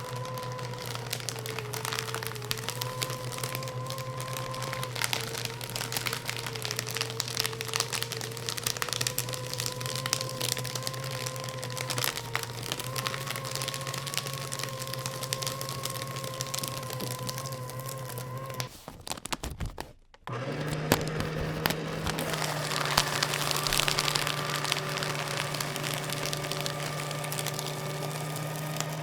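Electric paper shredder running and cutting paper: a steady motor hum under dense crackling and crunching as the paper is shredded. About two-thirds of the way through the motor stops for a moment, then starts again at a slightly higher pitch and carries on shredding.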